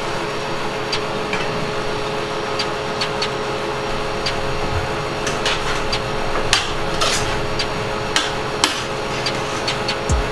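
Vegetables frying in hot oil in a stainless steel frying pan with a steady sizzle, while a metal spoon stirring them clinks and knocks against the pan every second or so.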